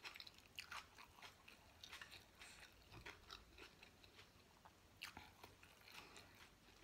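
Faint, close-up chewing of a mouthful of spicy rice-noodle salad with raw vegetables: soft, irregular wet mouth clicks and small crunches, a little busier about five seconds in.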